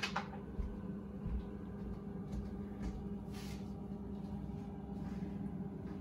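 Open refrigerator running with a low, steady hum. A short click comes at the start and a brief soft rustle about three seconds in.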